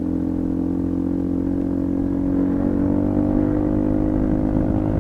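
Small-displacement motorcycle engine running steadily as the bike rides on, its pitch and level rising slightly as it gathers speed, picked up by a microphone inside the rider's helmet.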